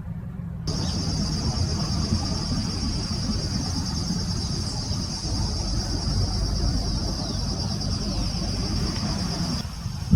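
An insect trilling steadily at a high pitch over a low rumble. The trill starts suddenly about a second in and stops shortly before the end.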